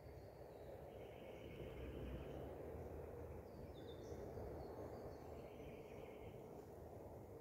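Faint outdoor dawn ambience: steady low background noise with distant birds calling, a few short high chirps and two drawn-out buzzing trills, one about a second in and one near the end.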